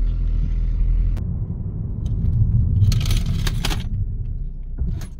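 2018 Skoda Superb rolling slowly and braking, with a steady low rumble and no brake squeal: the freshly replaced rear brake pads are quiet. A single click about a second in and a short rattling noise around three seconds in.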